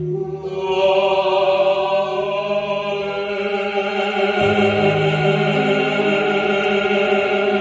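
A baritone and a female singer sing a Korean art song duet into handheld microphones, holding one long note together. The accompaniment under them changes chord about halfway through.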